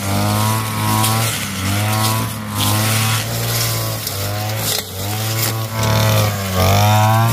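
Lawn mower engine running hard, its pitch dipping and rising about once a second as it cuts.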